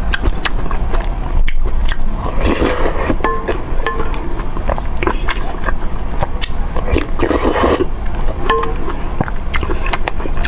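A person chewing and biting food close to the microphone, with many small wet clicks and a few short knocks.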